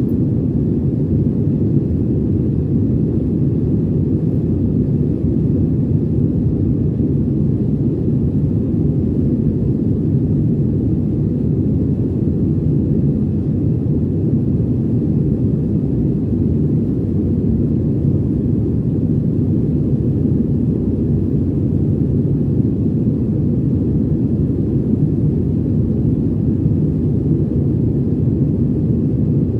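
Steady low rumble of an airplane in flight, engine and airflow noise heard from inside the passenger cabin.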